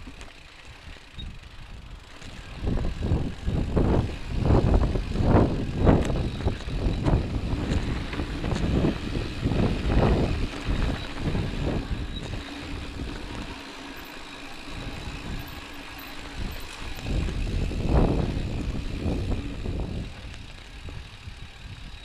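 Mountain bike rolling over a rough dirt singletrack: an irregular rumble of tyres and rattling frame over bumps, mixed with wind buffeting the microphone. It comes in uneven surges, busiest from a couple of seconds in, easing in the middle, swelling once more later and dying down near the end.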